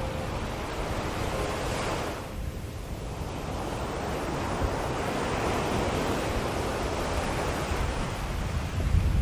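Ocean surf washing in and out: a steady rush of waves that drops away about two seconds in, then swells back up.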